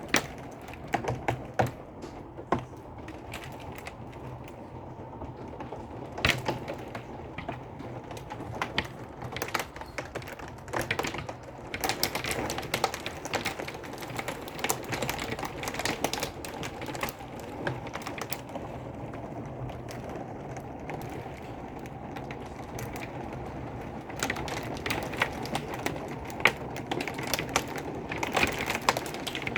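Heavy storm downpour drumming on a hard surface: a steady hiss of rain with a dense, irregular patter of sharp clicks and knocks. It grows heavier about twelve seconds in and again near the end.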